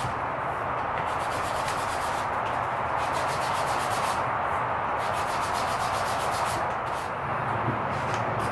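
Hand sanding with 150-grit abrasive on a knife handle of birch scales and stainless mosaic pins: quick back-and-forth scratching strokes that stop briefly a few times. The pin is being worked flush with the wood.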